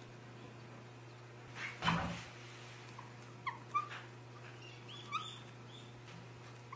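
Cling film rustling as it is stretched over a glass bowl of bread dough, then a felt-tip marker squeaking in a few short chirps as it draws on the film to mark the dough's level for rising. A steady low hum runs underneath.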